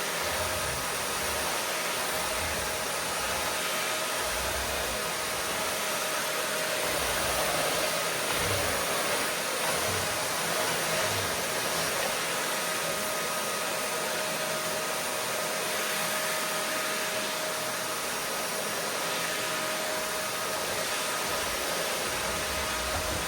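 Vacuum cleaner motor running steadily: an even rushing hiss of the airflow with a faint steady whine over it.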